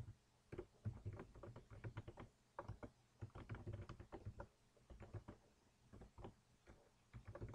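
Faint typing on a computer keyboard: keystrokes clicking in short, irregular runs.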